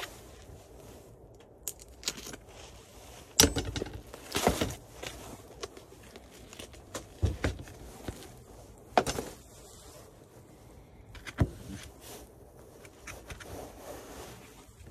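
A plastic-wrapped meat tray being unwrapped and handled, with a handful of sharp crinkles and knocks a second or two apart.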